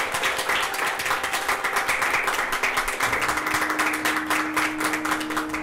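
Audience applauding, a dense, steady clatter of many hands clapping together.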